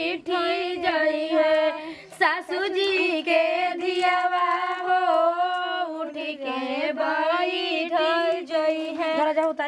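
Women singing a wedding folk song in one melody line, with long held, wavering notes.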